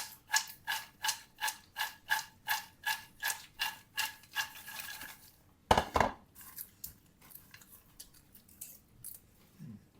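Steady mechanical ratchet-like clicking, about three clicks a second, each with a short ringing pitch. It stops about four and a half seconds in, followed about a second later by one loud knock and then a few faint light taps.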